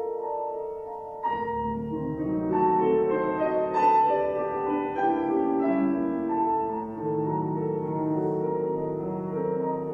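Two pianos playing a classical concerto movement. A repeated high figure is joined about a second in by fuller chords and a lower bass line.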